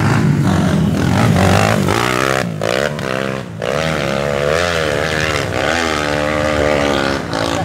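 Dirt bike engine revving hard as the bike climbs a steep dirt hill: a loud low rumble at first, then an engine note whose pitch repeatedly rises and falls, dipping briefly about three and a half seconds in.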